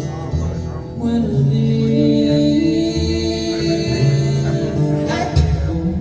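Recorded music with singing and guitar played back through a hi-fi system's floor-standing loudspeakers, heard in the room, with held notes over a steady bass line.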